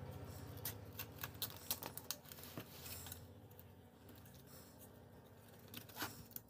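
White nylon cable ties being threaded and pulled tight through their ratchet heads: a run of small sharp clicks over the first three seconds, then one more click near the end, over a faint low hum.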